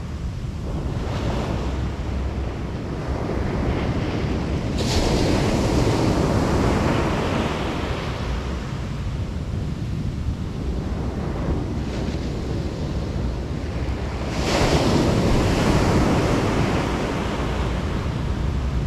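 Ocean surf on the beach, with waves breaking and washing in. Two waves crash louder, about ten seconds apart. Wind buffets the microphone underneath.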